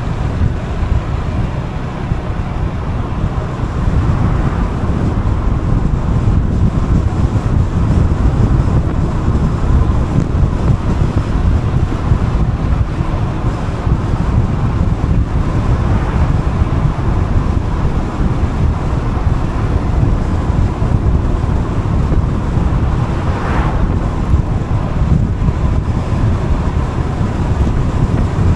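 Steady wind buffeting on the microphone of a moving Gilera Fuoco three-wheeled scooter, a dense low rush with the ride's engine and road noise underneath. One brief louder swell comes about five seconds before the end.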